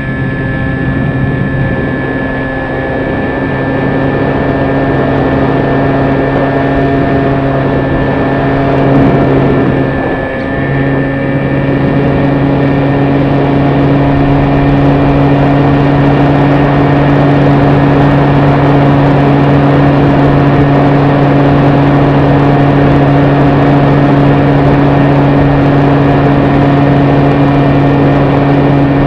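Electric motor and propeller of a Hobby King Sky Eye RC plane running steadily in flight, a constant whine and hum with wind rushing over the onboard camera's microphone. The sound dips briefly about ten seconds in, then holds steady and a little louder.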